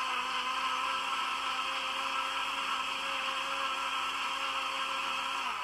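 Electric countertop blender running steadily at full speed, blending watermelon with water and sugar into juice: a constant motor whine over a whirring hiss. Near the end the motor pitch drops as it is switched off and winds down.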